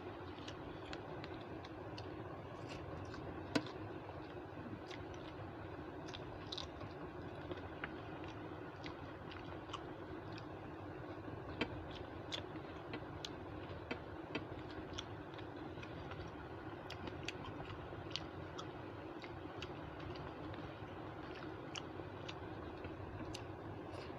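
Eating rice and chicken curry by hand from a steel plate: fingers mixing and scraping the food on the plate, and chewing. There are many small scattered clicks, a sharper one about three and a half seconds in, over a steady background hum.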